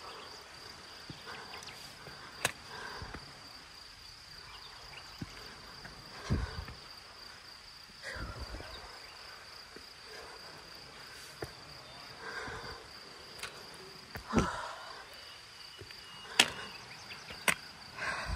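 A steady high-pitched insect drone, with irregular footsteps on a dirt trail and a few sharp clicks.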